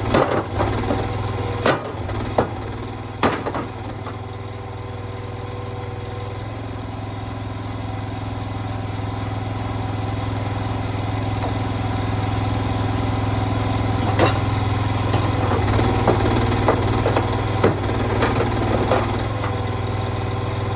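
An engine running steadily throughout, with sharp knocks and clatters several times in the first few seconds and again in a cluster during the latter part.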